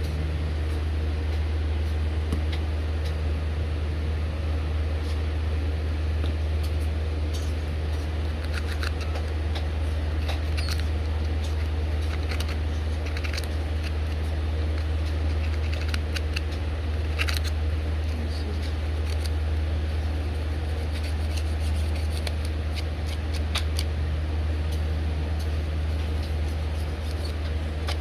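Steady low hum under scattered small clicks and taps from a phone and its parts being handled during an iPhone 6 screen repair, with a cluster of clicks around the middle.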